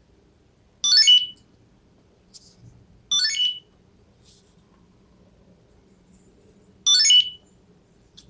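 Chipolo ONE Point Bluetooth tracker playing its short electronic jingle three times, a few seconds apart, each about half a second long.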